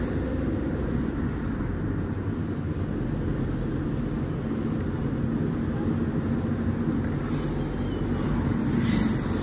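Car engine and road noise heard from inside the cabin while driving: a steady low rumble with a faint hum.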